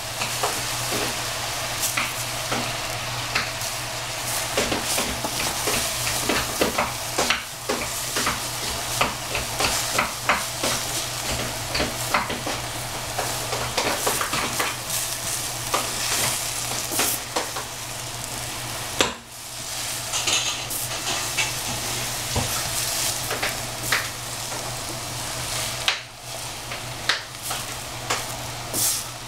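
Cabbage and celery sizzling in a stainless steel saucepan as a wooden spatula stirs and turns them, with frequent light knocks and scrapes of the spatula against the pan. The stirring breaks off briefly twice, about two-thirds of the way through and near the end.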